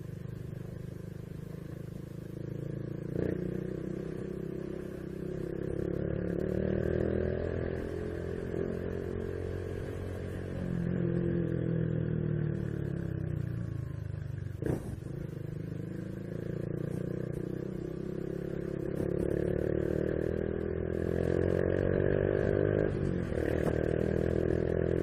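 Honda Biz 125's single-cylinder four-stroke engine running under way, its pitch climbing as it accelerates and dropping back at each gear change, several times over. A short knock comes about halfway through.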